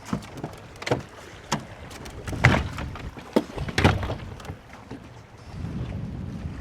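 A series of hollow knocks and thumps on a fishing boat, about six over four seconds, the loudest about two and a half and four seconds in, followed by a low steady rumble near the end.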